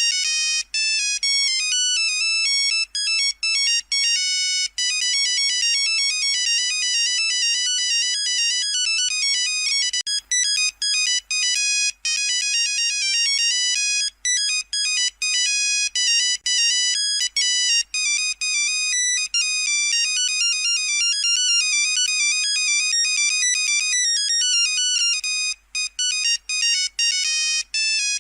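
Nokia 3310 monophonic ringtone playing a quick melody of high-pitched beeping notes over and over, with brief gaps between phrases.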